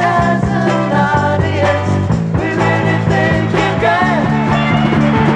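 Rock band playing: electric and acoustic guitars over bass and a drum kit, in a steady rock beat.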